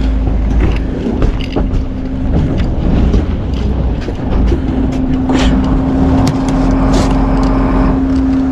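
Boat engine running with a steady low rumble and a constant hum that grows stronger about halfway through, with scattered knocks.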